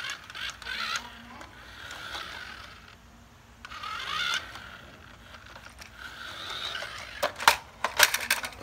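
Small electric motor and plastic gears of a toy RC truck whirring unevenly as it drives with a toy excavator on its back. Near the end comes a quick run of sharp, loud clattering knocks as the plastic excavator tips off onto the tile floor.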